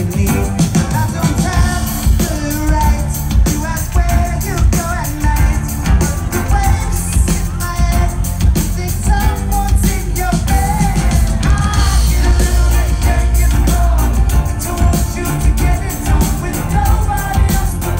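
Live rock band performing on stage: a male lead vocal sung over a pounding drum kit, heavy bass and guitar. The sound is heard from within the crowd, with the bass strongest.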